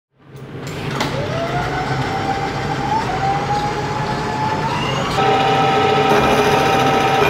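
Milling machine running, its end mill cutting into metal square tube held in a vise. A steady grinding noise carries a whine that climbs slowly in pitch, then shifts and grows louder about five seconds in.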